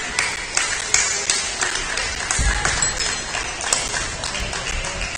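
Badminton rackets striking shuttlecocks across several courts in a sports hall, sharp hits coming irregularly several times a second over a hubbub of voices and hall echo, with a low thump about two and a half seconds in.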